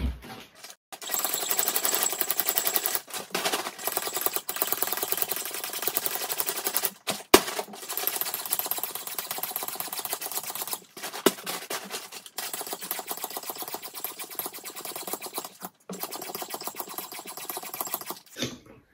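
Handheld plunger pump drawing air out of a vacuum storage bag full of clothes: a fast, continuous rattling buzz in stretches of one to three seconds, broken by short pauses between strokes. A sharp click comes about seven seconds in.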